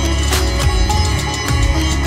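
Sitar fusion music: a sitar playing over a steady percussion beat and deep bass.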